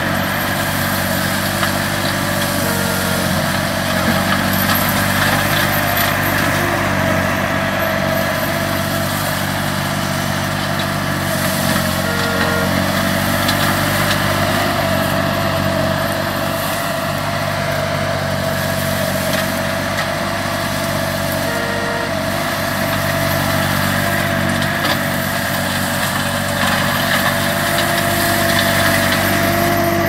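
Green Climber LV600 remote-controlled tracked slope mower running steadily under load, its Kohler engine driving the flail mulching head as it shreds heavy brush.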